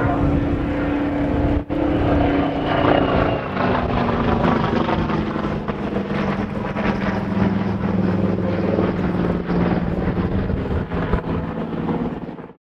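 Saab B17A's Pratt & Whitney Twin Wasp radial engine and propeller running as the plane flies past overhead; the pitch falls about two to three seconds in and then holds steady and lower. The sound cuts off suddenly at the end.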